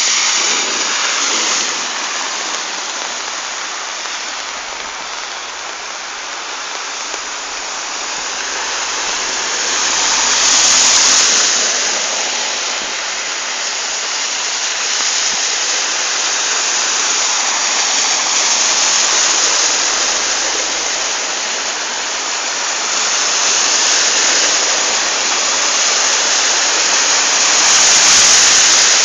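Steady rushing and splashing of water on a flooded street, as cars drive through water covering the road. The noise swells about ten seconds in and again near the end, when a car ploughs through the water close by and throws up spray.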